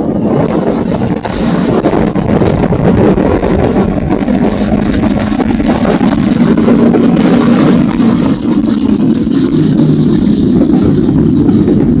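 Motorcycle engine running under way at a fairly steady pitch that rises slightly midway, with wind rushing over the microphone.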